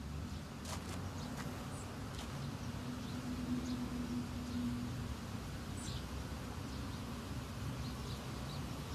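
Quiet outdoor ambience with a steady low hum. A fly buzzes for a couple of seconds near the middle, and a bird chirps faintly a couple of times.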